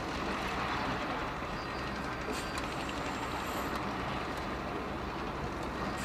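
Diesel engine of heavy earthmoving equipment running steadily, a constant low rumble with mechanical clatter.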